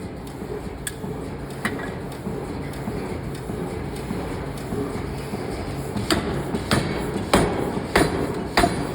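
Forging hammer striking hot steel: five sharp, evenly spaced blows about two-thirds of the way in, with a couple of faint knocks earlier. The strikes ride over a steady low rumble of factory machinery.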